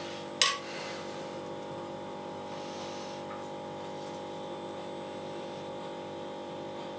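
A metal spoon clinks once against the glass bowl of meat filling about half a second in, followed by a steady background hum while the pasta sheets are rolled by hand.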